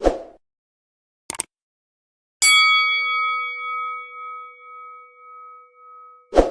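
A single struck bell-like chime about two and a half seconds in, ringing out with a slow, wavering fade for about four seconds. It comes after a short thump at the start and two quick clicks about a second in, and a sudden hit lands just before the end.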